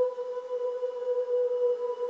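A suspense sound-effect drone: one steady held tone, mid-pitched with fainter overtones above it, wavering slightly in loudness.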